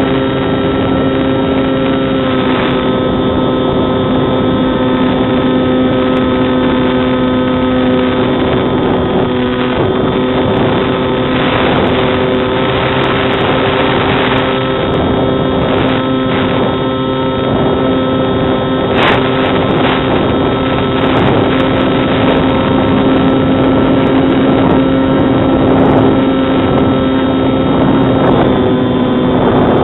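Electric pusher motor and propeller of a Bixler 2 RC foam plane, running as a steady drone with wind rushing over the onboard microphone. The pitch shifts slightly a few times.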